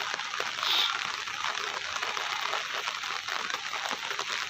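Steady rain falling and pattering on surfaces, a dense hiss of many small drops, with a brief louder swell just under a second in.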